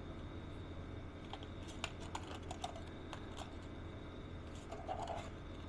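Small plastic clicks and taps from hands working an XT9 folding drone's fold-out arms and propellers: a run of irregular clicks between about one and three and a half seconds, then a short cluster near the end. A faint steady hum sits underneath.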